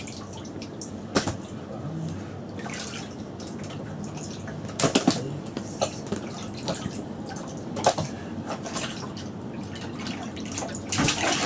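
Water sloshing and dripping in a bucket as a hand works in it, with four sharper splashes: about a second in, around five seconds, near eight seconds and near the end.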